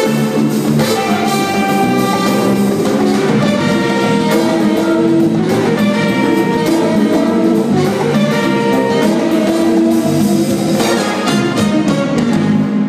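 Live jazz-funk band playing: electric bass, electric guitar, keyboards, drum kit and congas, with sustained chords over a steady groove. The band stops together at the very end.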